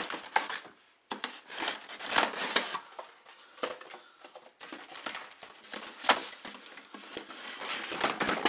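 Cardboard packaging scraping, rustling and crinkling in irregular bursts, with short clicks, as a large plastic toy body is worked loose from its cardboard box inserts.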